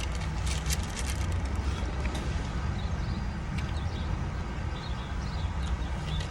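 Close-up chewing of a bite of chicken tender wrap, with a few crinkles near the start, over a steady low rumble.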